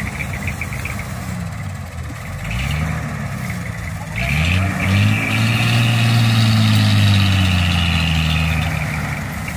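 Heavy diesel vehicle engine revving under load: two short surges, then a long rise held at high revs for about four seconds before it eases off near the end, as it works to free a sugarcane-laden truck stuck in mud.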